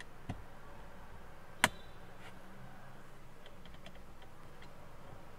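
Plastic clicks from a suction-cup car phone mount being adjusted: a small click, then a sharp loud click a little over a second later, followed by a few faint ticks.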